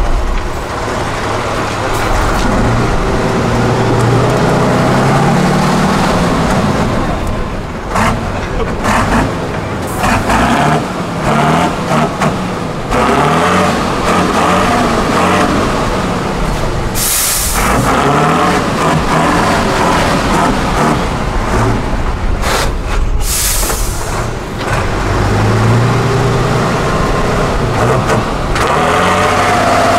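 Tatra 813 8x8 truck's air-cooled V12 diesel labouring under load and revving up and down as it crawls through a muddy ditch. Two short, loud bursts of air hiss come a little past halfway, a few seconds apart, and there is a run of knocks and clunks in the first half.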